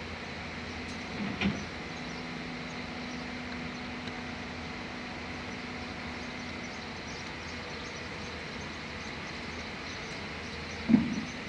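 Steady low hum of machinery running in the background, with a held low tone over the first few seconds. Two dull knocks of parts being handled: a small one about a second in, and a louder one near the end.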